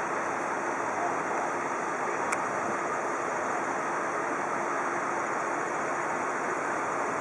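Steady rushing noise of floodwater flowing, with a single faint click about two seconds in.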